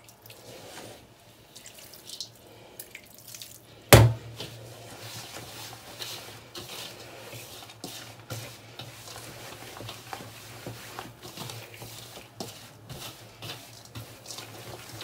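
Fingers rubbing water into damp semolina dough in a stainless steel bowl, making soft, scattered wet rustling and squishing, with one sharp knock about four seconds in.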